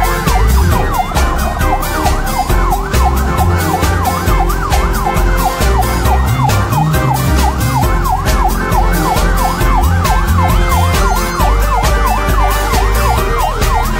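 Emergency-vehicle siren in a fast yelp, its pitch swooping down and up about three times a second, mixed with music that has a steady beat and heavy bass.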